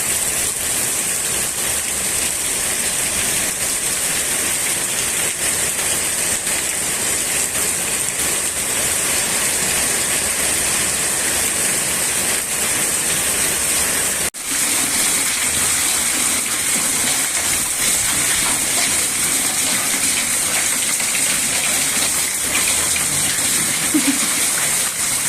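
Heavy rain pouring steadily, with a very short break about halfway through.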